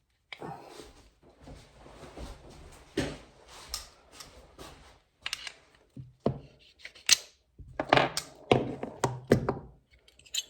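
Irregular knocks and clicks of tools and metal parts being handled while a snow bike's footpeg mounts are worked on, with a sharper strike about three seconds in and a busier run of knocks near the end.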